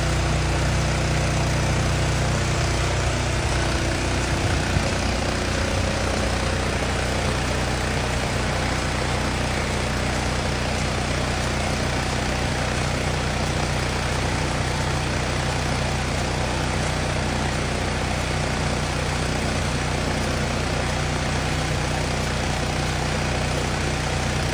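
Engine-driven fire pump running steadily at constant speed, drawing water from a pool, with an even hiss over the engine's low steady hum.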